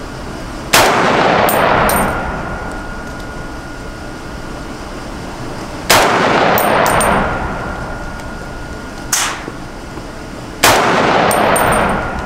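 Three single shots from a Springfield Armory Saint Victor .308 semi-automatic rifle, about five seconds apart, each with a long echo that dies away over about a second. A shorter, fainter crack comes between the second and third shots.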